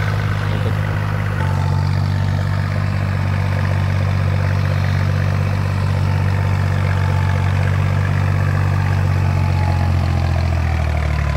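Farm tractor's diesel engine running steadily while puddling a flooded paddy field with cage wheels fitted to its rear wheels. The engine note shifts slightly about a second and a half in and again near the end.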